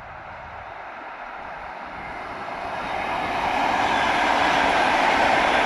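ED4M electric multiple unit approaching and passing on the rails: the rush of its wheels grows steadily louder over about four seconds, then holds level as the carriages run by.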